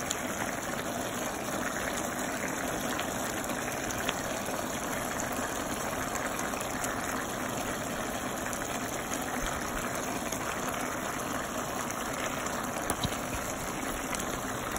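A pot of pork caldereta stew boiling steadily on the stove, a constant bubbling hiss, with a couple of faint clicks.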